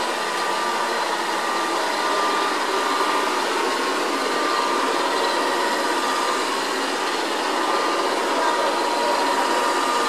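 Haier robot vacuum running as it cleans a hard floor: a steady whirring hiss from its suction fan and brushes, with a faint high whine.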